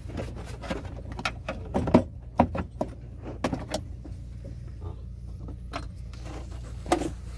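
Scattered clicks, knocks and rattles of a plastic blower fan controller and its wiring connectors being worked loose and pulled out of a truck's dashboard, over a steady low hum.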